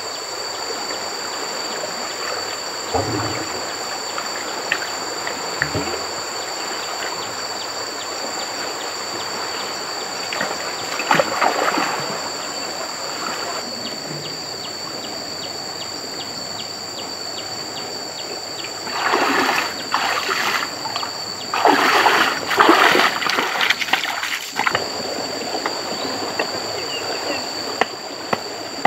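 Water running steadily, with bouts of splashing: a short one about eleven seconds in and two longer, louder ones near twenty and twenty-three seconds. A steady high-pitched insect drone runs underneath.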